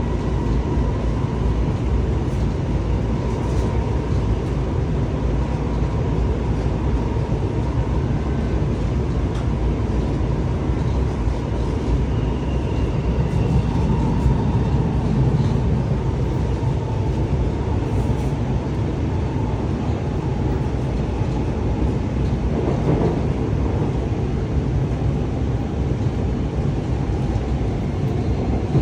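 Interior running noise of an Alstom Movia R151 metro train in motion: a steady low rumble of wheels on rail with a faint whine above it.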